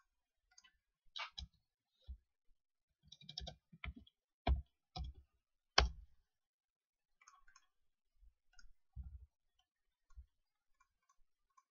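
Computer keyboard typing and mouse clicks: a scattering of short, sharp clicks, the loudest about four and a half and six seconds in.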